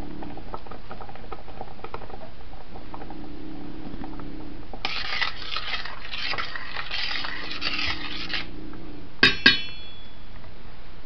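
A spoon stirring thick mango habanero sauce in a stainless steel saucepan for a few seconds, then two sharp ringing clinks of the spoon on the pan near the end. The sauce bubbles faintly in the background.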